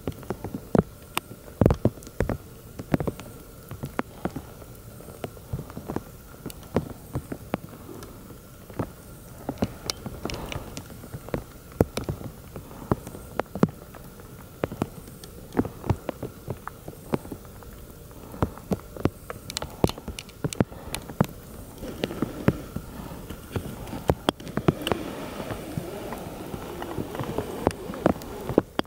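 Hailstones hitting rock and dry grass close to the microphone: irregular sharp ticks and taps, several a second at times.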